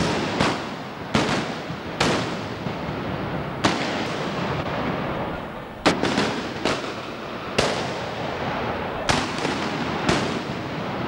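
Black-powder arquebus shots from a mock battle, about nine sharp bangs at irregular intervals. Each bang trails off in a long rolling echo, and the shots overlap into an almost continuous din.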